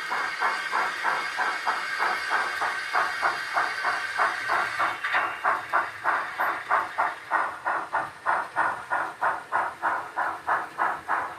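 Model steam locomotive's DCC sound decoder playing steady exhaust chuffs, about three or four a second. A hiss of steam runs over the chuffs and stops about halfway through.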